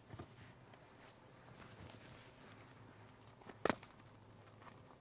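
Quiet handling noise over a low steady hum, with one sharp click about three and a half seconds in.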